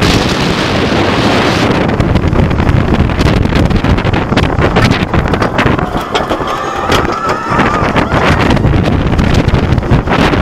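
Heavy wind buffeting a head-worn camera's microphone over the steady rumble and clatter of a Bolliger & Mabillard wing coaster train running along the track at speed. A faint thin whine comes in briefly a little past the middle.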